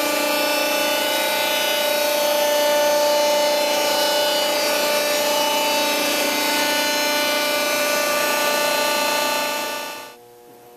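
Hydraulic power unit of an Alpha 60-ton compacting press running with a steady whine, then shutting off suddenly near the end and leaving a faint hum.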